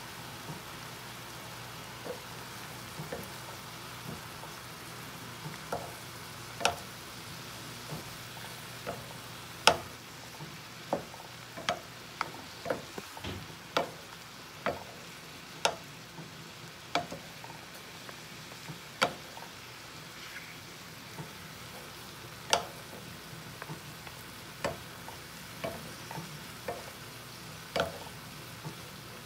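Mushrooms, broccoli, spinach and chopped bacon sizzling in a wok-style pan, stirred with a wooden spoon. The spoon knocks against the pan at irregular intervals, about once a second.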